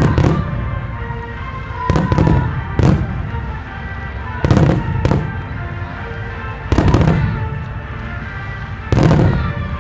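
Fireworks shells bursting in a display, a loud bang with a rolling echo every two seconds or so, about seven in all, two of them in quick pairs.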